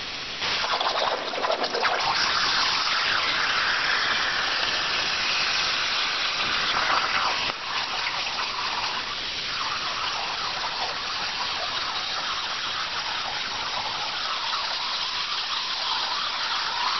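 CNC plasma torch cutting 1/8-inch steel over a water table: a loud, steady hiss that starts about half a second in.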